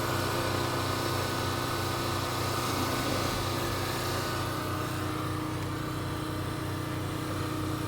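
Steady droning hum of a running motor, even in pitch and level throughout.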